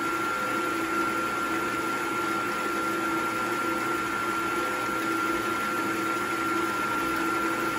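Milling machine spindle running steadily, with a constant high whine, while a chamfering bit is fed slowly down into the lug hole of a cast aluminum wheel, cutting a small chamfer.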